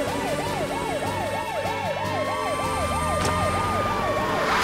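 Cartoon rescue vehicle's siren yelping rapidly up and down, about four to five sweeps a second, with a steady higher tone joining about two seconds in and a short rush of noise at the end.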